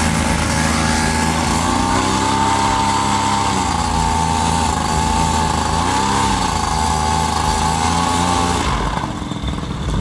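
Paramotor engine running on a pilot's back, its pitch swelling and falling back twice, then dropping away near the end.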